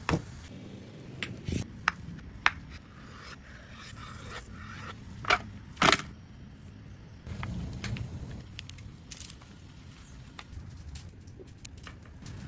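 Food-preparation handling sounds: several sharp knocks and clicks, the loudest a pair around five to six seconds in, with scraping between them.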